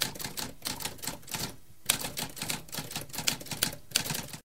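Typewriter keys clattering in a quick, irregular run of sharp strikes, with a short break about a second and a half in. The typing cuts off abruptly near the end.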